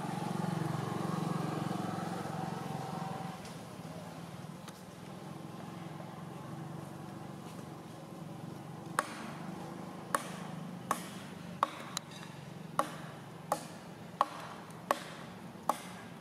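A low steady hum fades out after about three seconds. About halfway through, a regular run of sharp knocks begins, roughly one every 0.7 seconds, each with a short ring.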